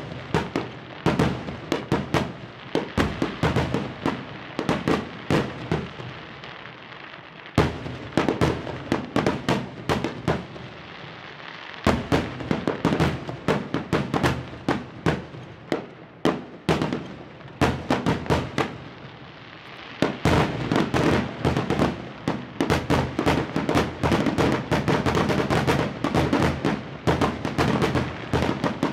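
Aerial firework shells bursting in a string of sharp bangs and crackles. From about twenty seconds in, the bangs come almost without a break in a rapid barrage.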